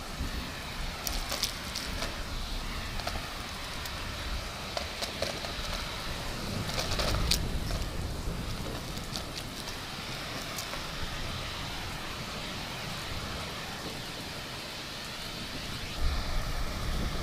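Heavy rain pattering steadily, with low thunder rumbles swelling about seven seconds in and again near the end, over a vacuum cleaner running.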